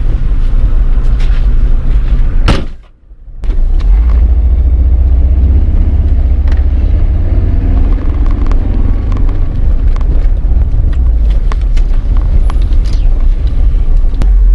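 Steady low engine and road rumble of a VW car, heard from inside the cabin while driving. The rumble drops out for under a second about three seconds in, then carries on.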